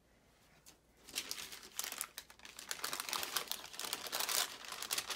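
Paper crinkling and rustling as a sticker sheet is handled, with dense crackling starting about a second in.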